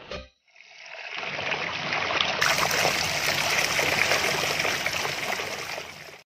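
Running water like a stream, fading in over about a second, running steadily, then cutting off suddenly near the end. A short knock comes just before it at the very start.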